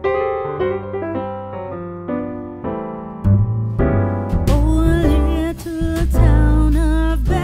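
Background music: piano chords, joined about three seconds in by a heavy bass and sharp drum beats, then a singing voice about a second later.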